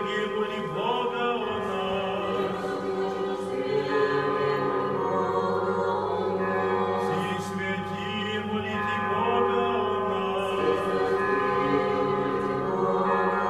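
Church choir singing an unaccompanied chant in long, held chords, in the style of Russian Orthodox liturgical singing.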